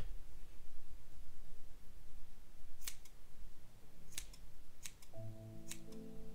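Grooming scissors snipping a Miniature Schnauzer's coat: about five sharp, single snips, a second or so apart. Near the end, soft background music with mallet-like notes comes in.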